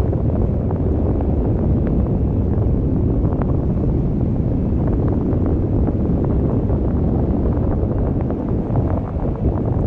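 Wind buffeting the microphone of a GoPro Hero7 Black camera hung from a kite: a loud, steady low rumble with scattered faint ticks.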